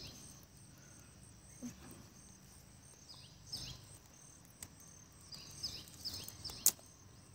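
Soft rustles and small clicks of a nylon fishing net being pulled and picked apart by hand to free a live river crab, with one sharp click near the end. Steady insect chirping runs underneath.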